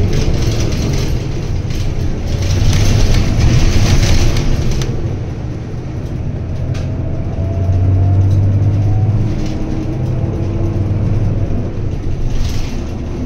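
Diesel city bus heard from inside the front of the cabin as it pulls away and accelerates along the road: a steady low engine hum with a whine that rises in pitch through the gears, plus road and cabin rattle noise.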